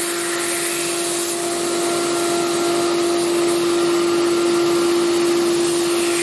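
Kimla CNC router's spindle running with a steady tone while it chamfers the bottom edge of a sheet-metal part, over the steady rush of the dust extractor and the vacuum-table pump.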